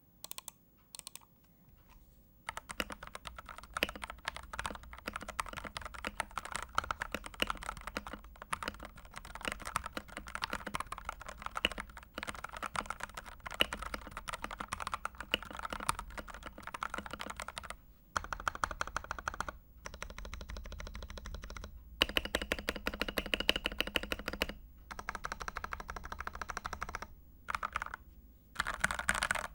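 Typing sound test on a mechanical keyboard with Gateron Pro Yellow linear switches, XDA-profile PBT keycaps and modded Cherry stabilizers: fast, continuous key clacks starting about two seconds in, broken by a few short pauses.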